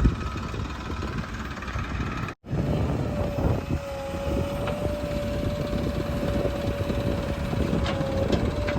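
Heavy diesel machinery engine running, cut off for an instant about two seconds in, then running again with a steady whine over the engine noise.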